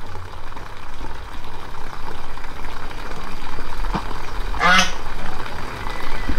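A duck quacks once, a short call nearly five seconds in, over a steady background hiss.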